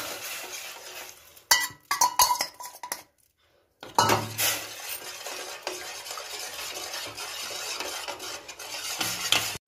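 Metal spoon stirring a thin chilli sauce in a stainless steel pan, scraping and clinking against the metal, with a few sharp clinks about two seconds in. The sound cuts out completely for under a second near the middle, then the stirring goes on steadily.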